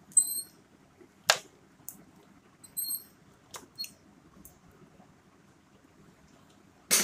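Side-cutting pliers snipping and handling a copper electrical wire: a few sharp clicks, the loudest about a second in. Two short high-pitched squeaks come near the start and about three seconds in.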